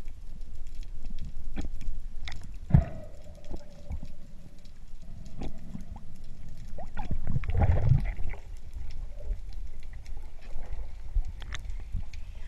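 Muffled underwater sound picked up by a camera in a waterproof housing: a low rumble of moving water with scattered clicks and knocks. The loudest is a sharp knock nearly three seconds in, followed by a ringing tone that lasts about two seconds, and there is a louder rush of water a little past the middle.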